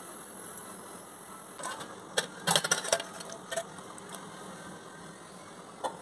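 A quick run of sharp crackles and clicks from toasted bread and a steel plate being handled, loudest about two to three seconds in, with one more click near the end, over a steady low hum.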